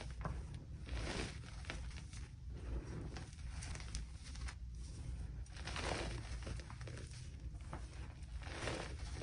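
Hands pressing, patting and scooping through a heap of loose powder made of crushed gym chalk, cornstarch and holi powder. The sound is a series of soft puffs and swishes at uneven intervals.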